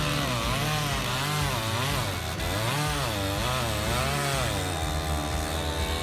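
Chainsaw running under load as it cuts into a tree trunk, its engine pitch rising and falling over and over as the saw bogs in the wood and picks up again.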